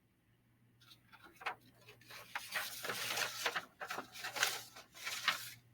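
Handwriting: a quick run of irregular, scratchy pen strokes across a writing surface, starting about a second in, as equations are written out.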